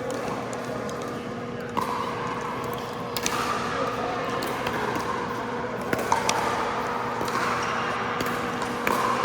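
Pickleball rally: several sharp pops of paddles striking the plastic ball, a second or more apart, with shoe squeaks on the court floor and a steady hum underneath.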